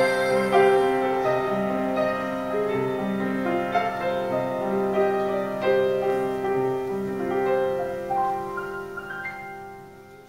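Piano playing the slow closing bars of a song, held notes ringing and then dying away near the end.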